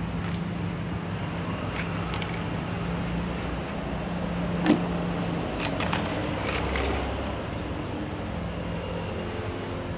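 Small plastic toy kitchen pieces clicking and knocking as they are handled, a few light clicks with the sharpest about halfway through and a quick cluster soon after, over a steady low hum.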